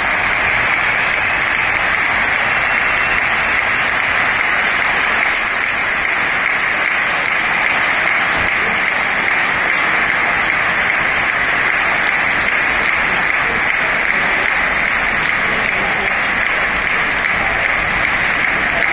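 Large arena crowd applauding, a steady, unbroken clapping that holds the same level throughout.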